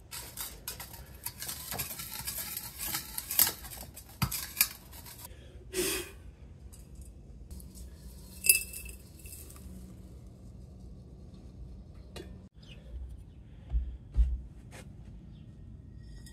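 Small torch-burnt BGA and IC chips clinking and scraping in a steel wok and tipped into a glass beaker, a scatter of sharp metallic and glassy clinks, one of them ringing about halfway through. Two dull knocks near the end.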